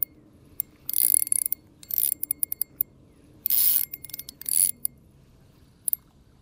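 Spinning fishing reel working in four or five short spurts of quick clicking, about a second apart.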